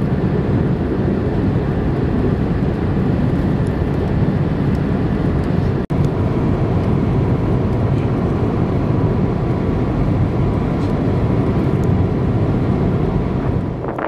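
Wind blowing hard across the microphone: a loud, steady rushing rumble, heaviest at the low end, broken by a split-second dropout about six seconds in.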